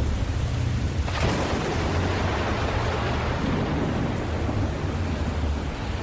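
Steady rain with a low rumble of thunder underneath; about a second in a sharp thunderclap cracks and then rolls on, fading over the next few seconds.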